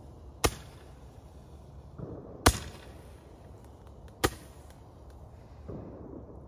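Handheld Roman candles firing: three sharp pops about two seconds apart as the shots launch, the middle one loudest, with a short hiss of burning between shots.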